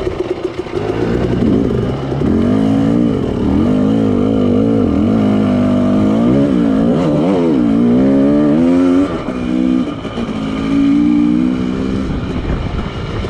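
KTM 300 TPI two-stroke dirt bike engine revving up and down under load on a steep rocky climb, its pitch rising and falling with the throttle. It drops off about nine seconds in and picks up again a second or so later.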